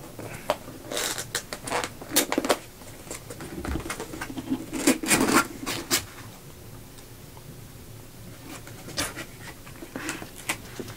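Cardboard box being opened by hand: scraping and rustling as the flaps and lid slide and fold, in a few short spells with a quieter stretch in the middle.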